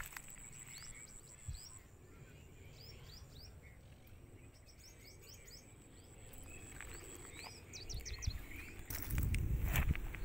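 Small birds chirping, many short rising calls, over a thin steady high whine. About eight to nine seconds in, low rumbling and sharp knocks close to the microphone.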